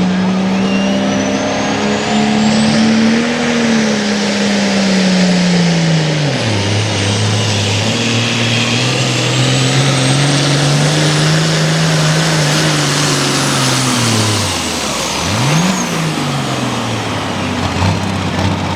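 Diesel hot farm tractor engine at full throttle during a pull. The engine note sags as it lugs down about six seconds in, holds, then drops off sharply near the end with one brief rev. A high whistle rises and falls over the engine throughout.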